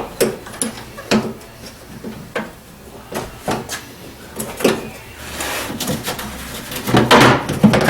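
A power door lock actuator being fished by hand into a truck door's inner cavity: irregular knocks, clicks and scrapes against the inside of the door, loudest about seven seconds in.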